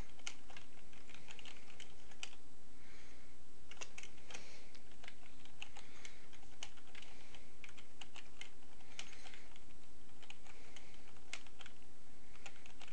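Computer keyboard being typed on: irregular runs of key clicks, over a steady low hum.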